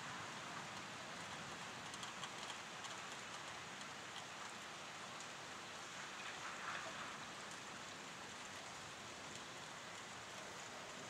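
Steady rain falling, heard faintly, with a few light ticks of drops a couple of seconds in.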